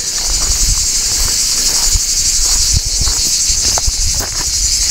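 A steady, high-pitched shrill chorus of insects, with a fine fluttering texture, and scattered low thumps underneath.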